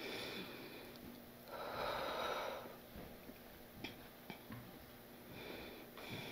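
A woman sniffling and breathing through her nose, with the strongest sniff about two seconds in and smaller ones at the start and near the end. A few faint clicks come in between.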